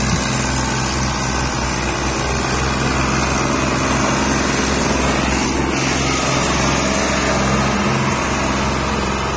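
New Holland Ghazi tractor's diesel engine running steadily under load as it hauls a trolley piled high with sugarcane.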